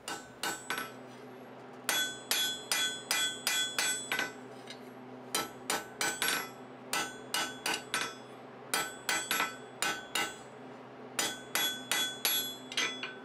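Blacksmith's hand hammer striking a red-hot bar on the anvil face while forging a chisel point. The blows come in runs of several strikes, about three a second, with short pauses between runs. Each blow has a brief metallic ring.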